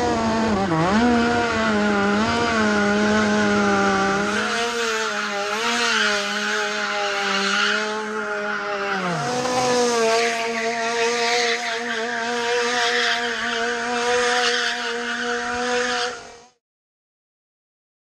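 KZ shifter kart's 125cc two-stroke engine running at high revs, its high steady note dropping sharply about a second in and again around nine seconds in, as the revs fall and pick up again. The sound stops near the end.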